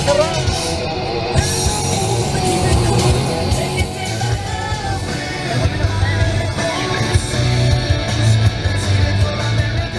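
Background music: a rock-style song with a steady beat and singing.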